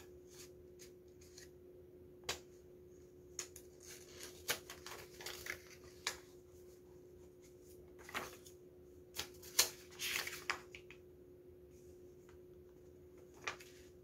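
Faint paper handling: scattered light rustles and soft clicks, about a dozen short sounds with a brief rustle near the middle, over a low steady hum.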